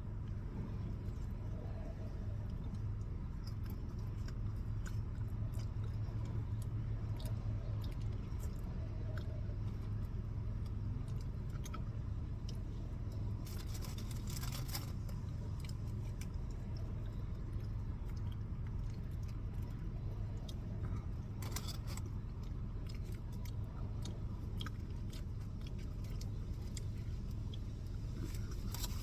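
Someone eating: chewing, with small clicks and a couple of brief rustling or crunching bursts, over a steady low hum.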